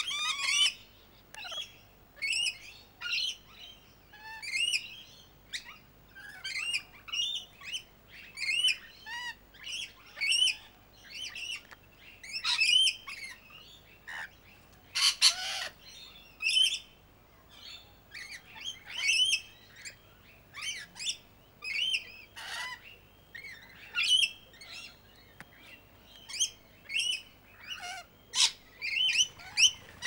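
A mixed flock of birds, rainbow lorikeets among them, calling without a break: quick, arching chirps one after another, with a harsh screech about halfway through.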